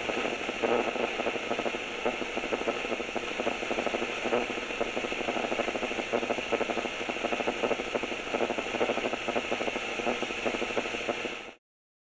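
A small machine running with a fast, steady rattle and whir, cutting off abruptly near the end.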